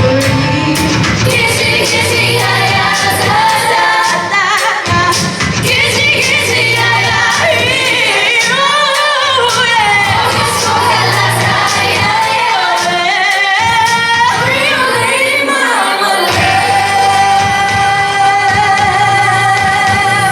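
Music with singing voices over an accompaniment with a bass line, ending on a long held sung note.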